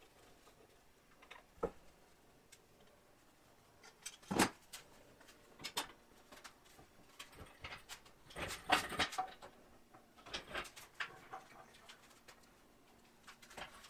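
Scattered knocks, clanks and scrapes as a Bridgeport milling machine's table is slid off its ways and swung on an engine hoist chain. The loudest knock comes about four seconds in, and there is a short cluster of clatter around nine seconds.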